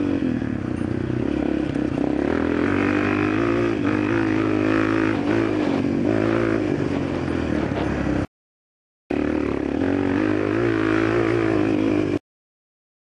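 Dirt bike engine running close up while the bike is ridden, its pitch rising and falling as the throttle opens and closes. The sound drops out briefly about eight seconds in and cuts off abruptly near the end.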